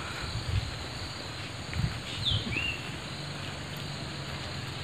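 Evening outdoor ambience of insects, crickets, shrilling steadily, with one short falling call about two seconds in and a few soft low thumps.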